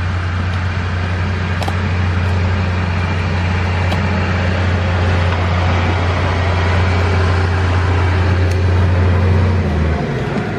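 A steady low engine drone over a constant hiss, the drone cutting off near the end.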